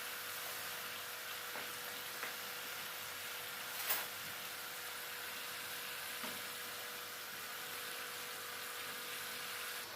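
Breaded chicken pieces deep-frying in hot oil: a steady sizzle, with one sharp click about four seconds in.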